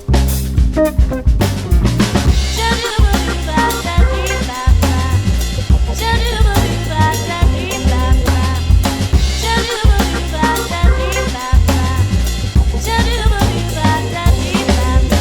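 Background music with a heavy drum-kit beat.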